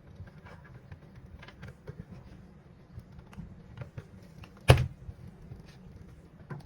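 Light clicks and taps of kitchen food preparation, with one sharp knock about four and a half seconds in.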